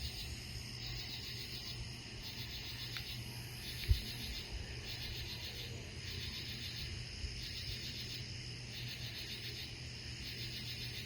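A chorus of night insects trilling in even bursts about once a second, with a fainter, higher pulsing above it. There is a single soft low thump about four seconds in.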